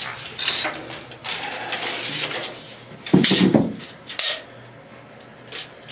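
Steel tape measure being pulled out and laid along a concrete floor: a scatter of metallic clicks, rattles and scrapes, the loudest clatter about three seconds in.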